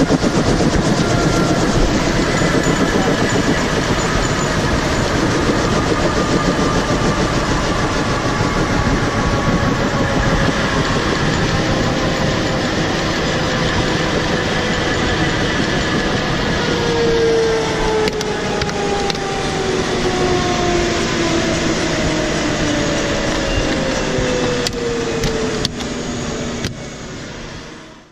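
AS350 A-Star helicopter's turbine and rotor running on the pad, a steady loud noise with whining tones that slowly fall in pitch through the second half as the engine winds down. The sound fades toward the end.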